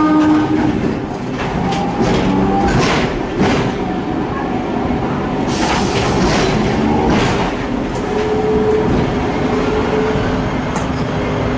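Hong Kong double-decker tram running along its street track, heard from inside the car: a continuous rumble and rattle, with a few sharp clacks as the wheels cross rail joints. A steady whine comes in about eight seconds in.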